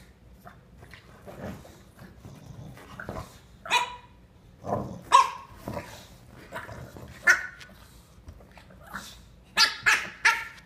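Puppy barking up at a bigger dog in short, high yaps, a handful spread out and three in quick succession near the end, with lower grumbling sounds between them.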